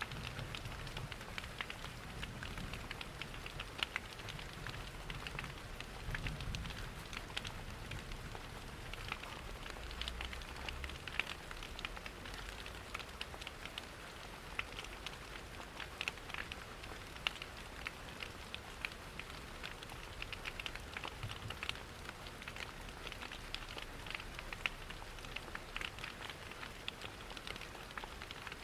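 Steady rain patter mixed with a crackling wood fire: a constant hiss of rain with many small sharp pops and ticks throughout, and a low rumble in the first few seconds.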